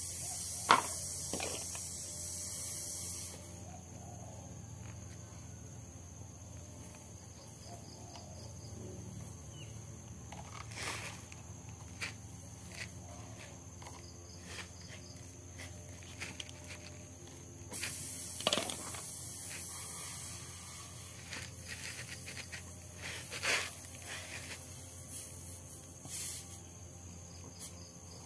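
Tyre plug-kit tools working a puncture in a car tyre's tread, giving scattered short clicks and scrapes. A high hiss starts and stops abruptly twice, for a few seconds near the start and again for several seconds from about two-thirds in.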